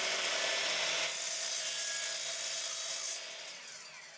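Bosch 12-inch miter saw with a wood-cutting blade running and cutting through 3/4-inch aluminum bar. A little after three seconds in the motor is switched off and the blade winds down, fading away.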